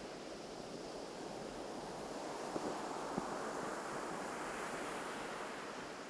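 Ocean surf washing onto a beach, a steady rush that swells up through the middle and eases off near the end, with a couple of faint clicks partway through.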